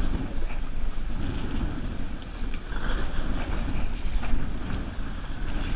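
Wind buffeting the microphone on a boat at sea, an uneven gusting rush heaviest in the lows, over the steady background noise of the boat and water.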